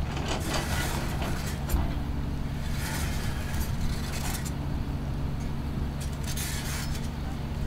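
Large engine of a heavy L&T machine running steadily, with three bursts of higher rushing noise over it.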